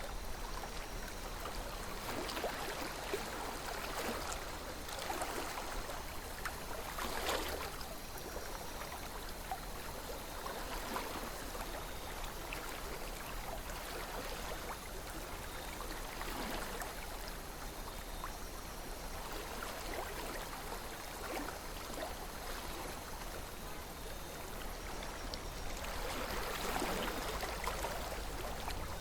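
A calm river flowing, a steady watery rush with occasional louder gurgles and splashes, the strongest about seven seconds in and again near the end.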